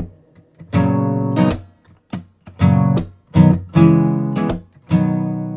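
Intro music: acoustic guitar strumming chords, each strum ringing and fading before the next.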